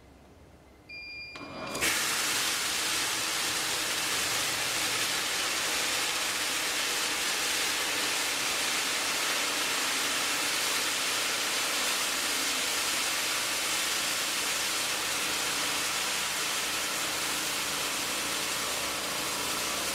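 Firebot stovetop fire suppression unit going off over a burning pan of cooking oil. About a second in there is a brief high electronic beep from its piezo alarm, then a loud, steady hiss of suppressant spraying onto the oil fire starts and carries on.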